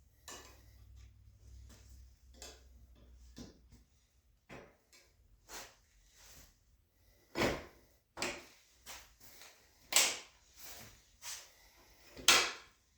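A sissy bar being fitted onto a motorcycle's rear docking hardware: a string of irregular handling knocks and clicks, with three louder metal clunks in the second half as it is seated in place.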